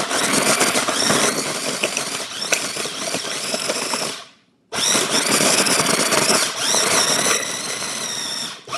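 Small Cuisinart food processor grinding chunks of horseradish root, run in two bursts of about four seconds each with a brief stop about four seconds in.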